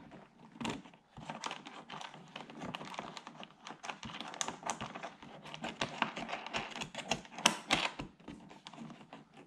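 Dense, irregular small clicks and taps of fingers fitting a bolt and washer by hand into the underside of a C7 Corvette's front splitter, with a louder knock about a second in and a few sharper clicks near the end.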